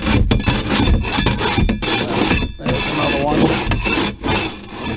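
Long-handled floor scraper pushed across a boat's bare floor in repeated strokes, its steel blade scraping off old carpet glue, dirt and grime.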